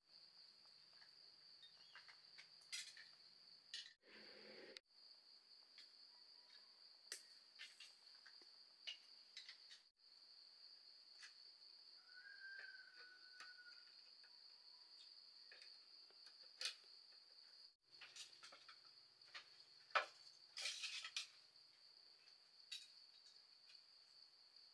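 Faint insects in the forest keeping up one steady high-pitched trill, with scattered light clicks and taps over it.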